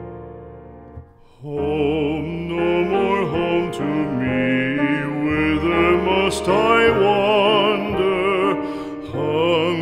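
A piano or keyboard chord fades out. About a second and a half in, a new passage starts: a singing voice with strong vibrato, in an operatic style, over sustained keyboard accompaniment.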